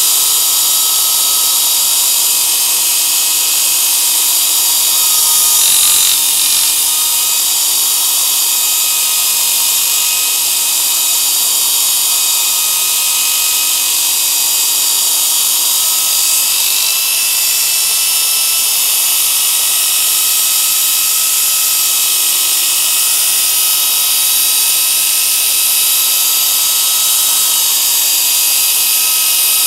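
Dynabrade Dynafile III air-powered abrasive belt file running steadily, its narrow belt grinding the edge of a metal workpiece: a constant high hiss and whine with a few faint steady tones, swelling briefly about six seconds in.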